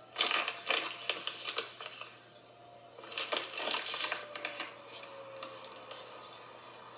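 Two bursts of rapid, dense clicking and crackling close to the microphone, the first lasting about two seconds and the second starting about three seconds in. A distant tornado warning siren sounds faintly underneath, its pitch slowly falling after the middle.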